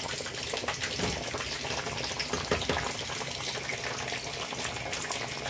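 Pot of spaghetti being parboiled: the water bubbles steadily with many small pops, and a wooden spoon stirs through it.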